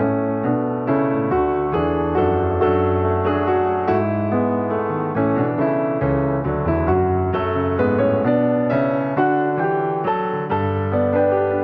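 Background piano music: a gentle piano piece with notes struck in steady succession.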